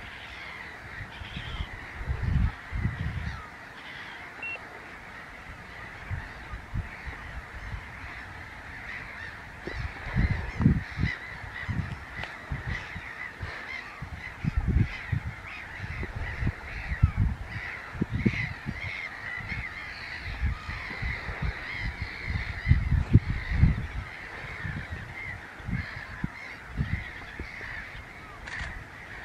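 A busy chorus of many water birds calling over one another, their short calls crowding together without a break. Irregular low rumbles come and go, the strongest about ten and twenty-three seconds in.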